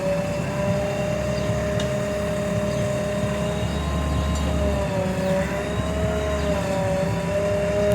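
JCB 3DX backhoe loader's diesel engine running steadily, a low rumble with a whine over it that wavers slowly in pitch.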